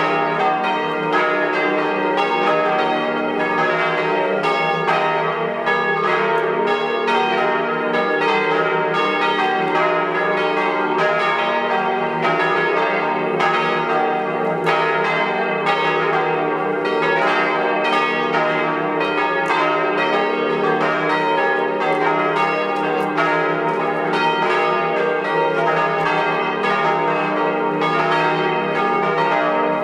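A ring of five swinging church bells, tuned in a diatonic scale on E-flat, ringing together in a steady peal of many overlapping strokes with long ringing tones.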